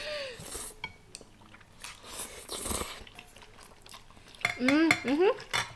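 A person slurping up a mouthful of instant ramen noodles and chewing, with a longer, louder slurp about two and a half seconds in. Near the end comes a short vocal sound with rising pitch.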